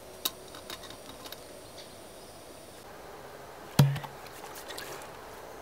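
A few light clicks, then one sharp, much louder knock just under four seconds in, against a quiet background.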